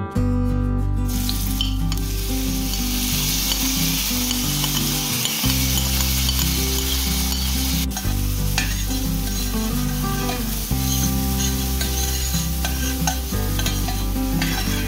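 Chopped onion sizzling in hot olive oil in a stainless steel pan, stirred and scraped with a metal spoon. The sizzle starts about a second in, as the onion hits the oil.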